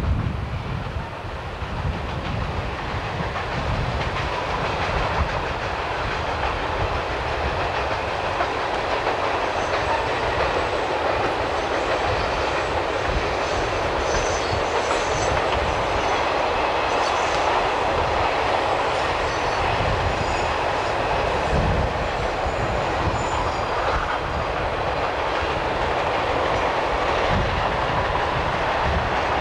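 Freight train cars rolling past at steady speed, a continuous rumble with the wheels clicking over the rail joints.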